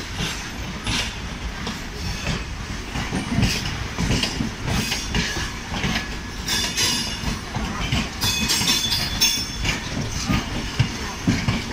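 Passenger train running slowly over points and rail joints, its wheels clattering unevenly over a steady rumble, heard close up from an open coach window. A few brief high-pitched wheel squeals come in over the second half.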